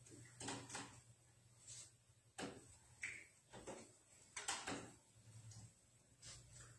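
Quiet, irregular clicks and knocks of metal communion trays being handled and passed along the pews, over a steady low hum.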